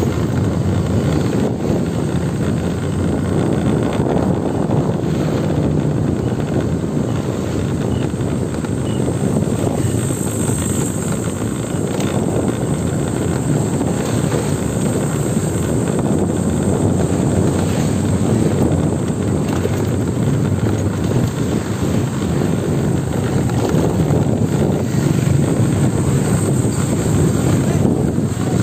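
Motorbike traffic on a road: a steady rumble of small motorcycle engines with wind noise on the microphone.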